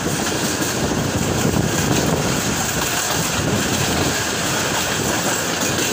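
Passenger train running along the track: a steady, loud rumble and rattle of the wheels and carriages.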